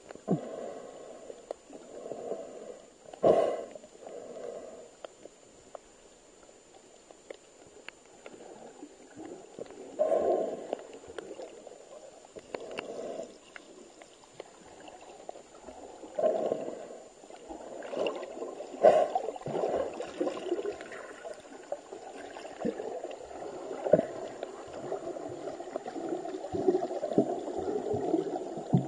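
Muffled underwater water movement heard through a waterproof camera housing: irregular gurgling surges of water with a few sharp clicks. The surges come every few seconds at first and run almost without a break near the end.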